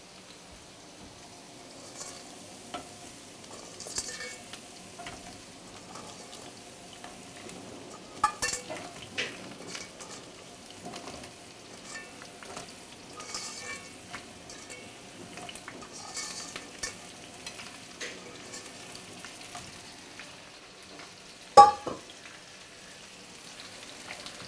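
Langoustines frying in oil in a pan, sizzling steadily while a wooden spoon stirs and scrapes them with small clicks. A single sharp knock comes about three seconds before the end.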